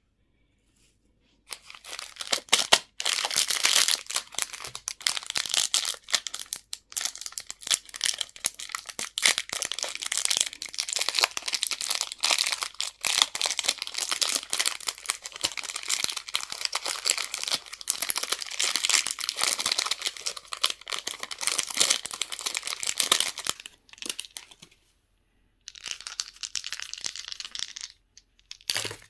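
Candy wrapper crinkling and tearing as it is unwrapped by hand, a dense crackle starting about a second and a half in and running on for about twenty seconds, then a short second burst near the end.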